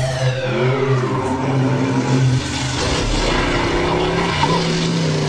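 Radio-controlled model car's motor revving as it drives, its pitch rising and falling.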